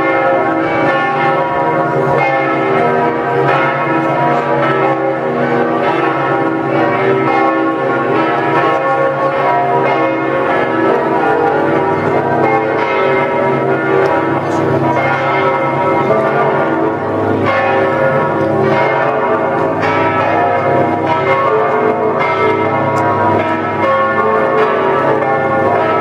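The tower bells of St Mark's Campanile ringing together in a continuous peal, many overlapping bell tones sounding at once without a break.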